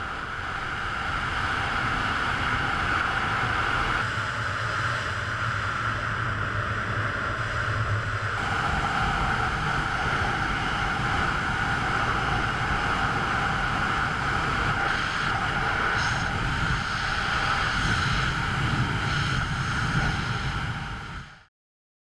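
Wind rushing over a BASE jumper's body-mounted camera microphone in flight, a loud, steady rush with a low rumble. It changes slightly about 4 and 8 seconds in and cuts off suddenly just before the end.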